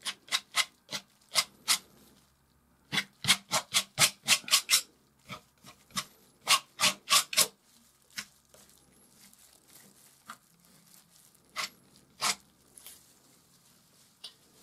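Palette knife dabbing and scraping oil paint onto canvas in short quick strokes, in runs of about four or five a second with pauses between, and two single strokes near the end.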